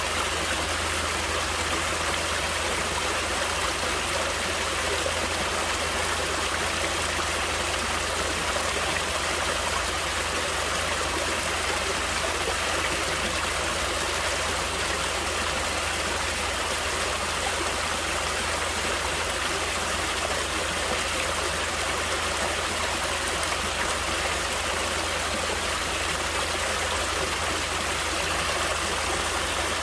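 Natural running water flowing in a steady, unbroken rush.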